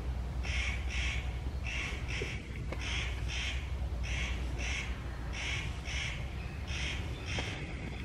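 A bird giving harsh, repeated calls, mostly in pairs, each pair about a second apart, over a steady low hum.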